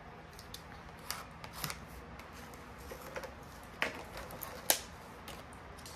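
A small plastic packet being handled and opened: scattered light crinkles and a few sharp clicks, the sharpest about three-quarters of the way through.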